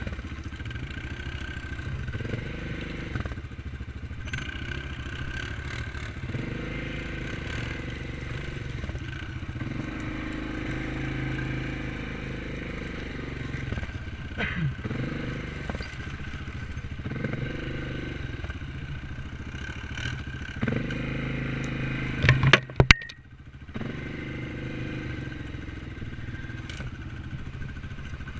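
Single-cylinder ATV engines running at low revs, rising and falling as the quads push through tall dry grass and brush, with clatter and scraping. About 22 seconds in comes a burst of loud knocks, then the sound drops out for a moment before the engines carry on.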